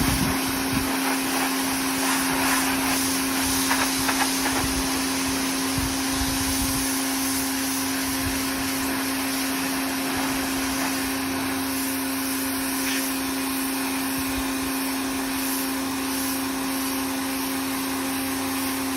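Portable electric pressure washer running, its motor and pump giving a steady hum under the hiss of the water spray. There are a few scattered knocks in the first few seconds.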